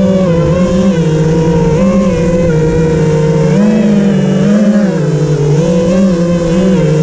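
A vehicle engine running, its pitch rising and falling every second or so as the revs change, with wind rumbling on the microphone.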